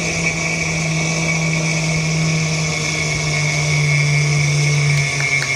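A man's vocal impression of a propeller airplane's engine, amplified through a microphone: a steady, unbroken droning hum that steps down slightly in pitch about five seconds in.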